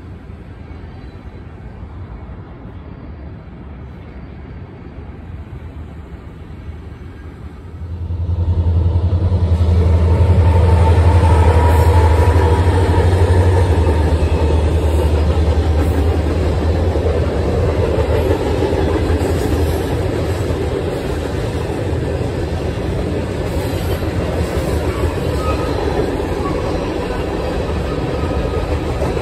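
Freight train rolling over a trestle bridge: a faint, distant rumble, then about eight seconds in a much louder close rumble with a heavy low drone that eases after a few seconds into the steady clatter of freight cars passing.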